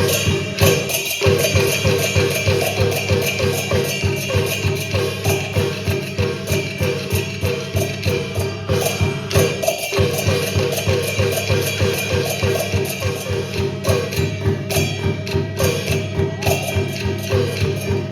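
Chinese opera percussion ensemble with wooden clappers playing a fast, even beat of about four or five strokes a second, with brief breaks about a second in and near the middle.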